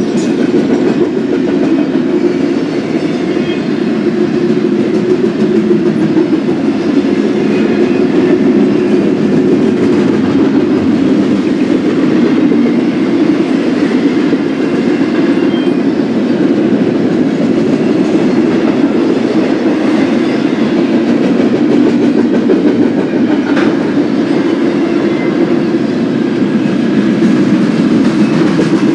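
Freight train cars rolling past at close range: a steady, loud rumble of steel wheels on the rails.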